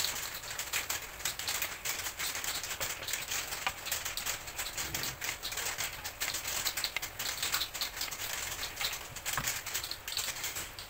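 Tomato-onion masala sizzling and crackling steadily in a hot frying pan as steamed quail eggs are slid into it and moved around with a silicone spatula.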